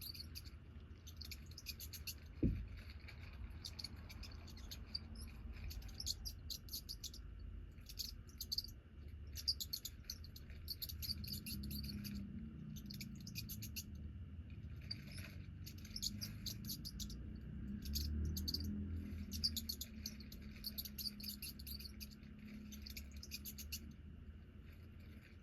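Short, high-pitched chirps repeating in clusters, like birds, crickets or squeaking mice, from a cat-entertainment video playing on a screen, over a low hum. A single low thump about two and a half seconds in.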